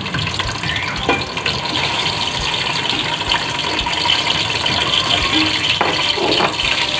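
Steady sizzling of raw chicken pieces dropped into hot oil in a steel pot, with a few knocks of the bowl and ladle against the pot.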